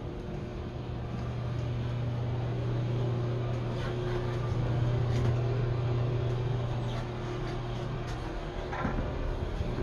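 A steady low droning hum that fades out about eight seconds in, followed by a brief scrape.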